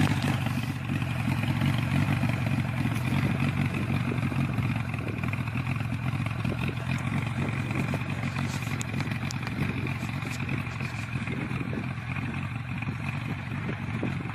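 Off-road vehicle engine running steadily at low revs, like an idle, with a few faint clicks.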